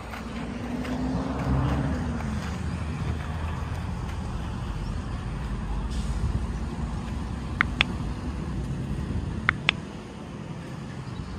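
Steady low outdoor rumble of distant road traffic and wind on the microphone. Two crisp double mouse-click sound effects, about two seconds apart, come from an on-screen subscribe-button and bell animation.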